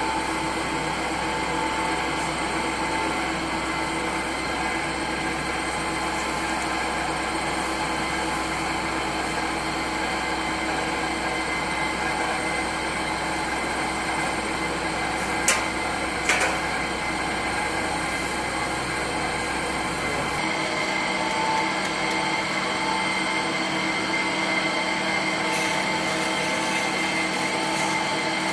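Electric dough mixer running steadily, its motor humming as the arm works flour and water into dough in the steel bowl. Two sharp knocks come about 15 and 16 seconds in, and about 20 seconds in the machine's sound changes as its deep hum drops away.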